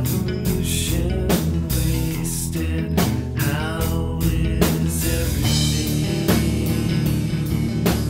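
Rock song played on guitars, bass and drum kit, with drum hits recurring throughout.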